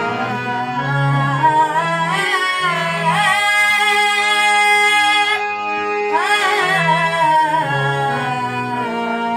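A Marathi gavlan devotional song: a singer's voice sliding and wavering through long ornamented notes over steady held reed-keyboard chords and low bass notes.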